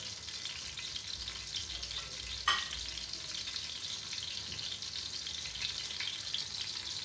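Cornflake-coated chicken deep-frying in hot oil in a kadai: a steady crackling sizzle, with one sharp tap about two and a half seconds in.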